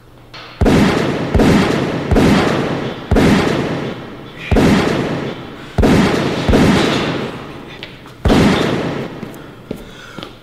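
A series of about eight loud bangs at uneven intervals, each ringing out and dying away over a second or so.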